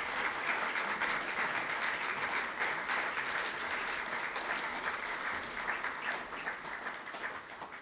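Audience applauding, a dense, steady clatter of many hands clapping that tapers off near the end.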